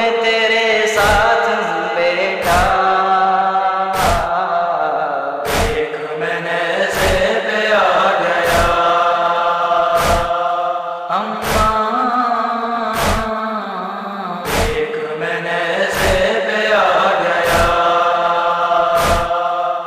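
Noha lament: chanted vocals carried over a steady beat of deep thumps, one about every one and a half seconds, in the manner of matam chest-beating.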